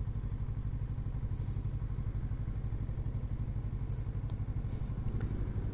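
Motorcycle engine running steadily under way, a low, even pulsing drone heard from the rider's seat.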